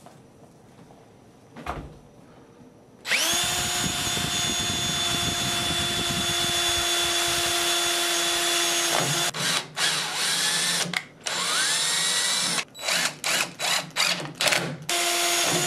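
Yellow DeWalt cordless drill starting about three seconds in and running steadily for about six seconds as it bores a hole through a stainless steel band on a metal boat-top tube. It then gives way to a series of short start-stop trigger bursts from a DeWalt cordless impact driver setting the band's screw.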